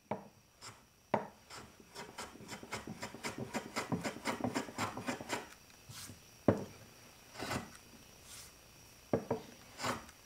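Metal block plane cutting the end grain of an ash handle and wedge flush with the top of a walnut mallet head: a fast run of short scraping cutting strokes through the first half, then a few separate sharp knocks.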